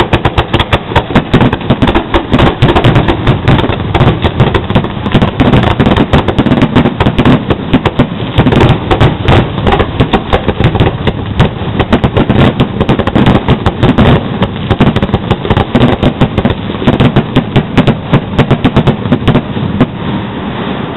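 Aerial fireworks shells and comets bursting in a dense, continuous barrage, several loud booms and cracks a second overlapping one another without a break.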